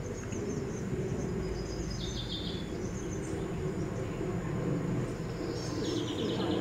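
Outdoor ambience of birds chirping, with a short rapid trill about two seconds in and another near the end, over a steady low background hum.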